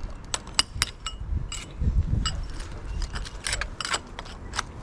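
Small metal items clinking and jangling, a dozen or so sharp, irregular clinks, over a low rumble.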